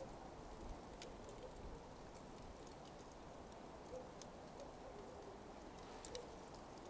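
Burning coals crackling faintly: irregular sharp ticks and small pops, one or two a second, over a low steady hiss.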